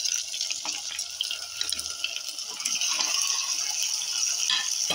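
Hot oil sizzling in a pressure cooker as pieces of goat leg are tipped in from a plate, with crackles and light knocks of the pieces landing. The sizzle grows louder about halfway through.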